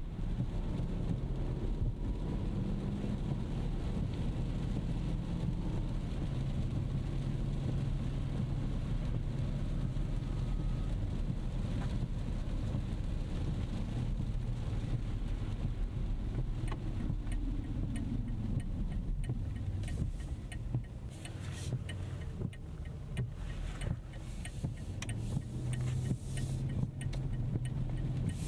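2025 Rolls-Royce Ghost Series II on the move, heard from the cabin: a steady low road and tyre rumble with the 6.75-litre twin-turbo V-12 running quietly underneath. In the last several seconds there are scattered short, sharp hissing ticks.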